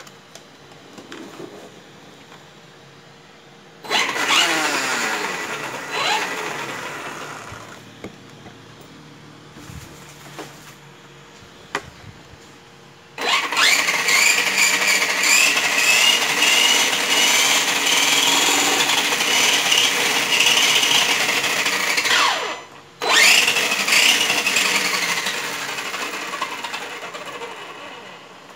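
DHK Zombie 8384 brushless motor and drivetrain spinning the wheels free in the air: a short burst about four seconds in that winds down, then a long steady high-pitched whine, a brief cut, and a last burst that slowly winds down near the end.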